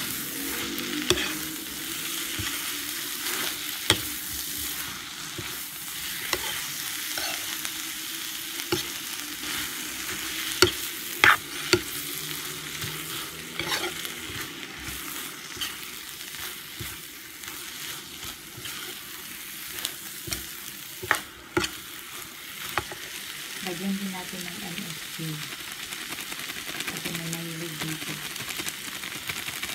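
Sardine and carrot lumpia filling sizzling in a wide metal pan while a metal spatula stirs it, scraping and knocking against the pan now and then over a steady hiss of frying.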